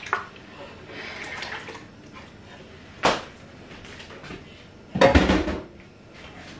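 Kitchen handling sounds: a plastic blender jug set down on its motor base with a sharp knock about three seconds in, then a louder, deeper clunk about five seconds in.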